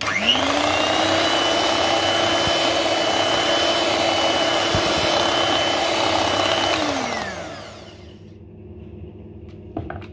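Electric hand mixer beating cream cheese in a bowl, its motor whining at a steady speed. It spins up right at the start and winds down with a falling pitch about seven seconds in.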